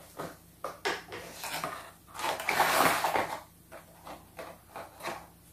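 Hands handling a cardboard toy box and its plastic-tabbed insert: scattered clicks and taps, with a longer rustling scrape about two seconds in.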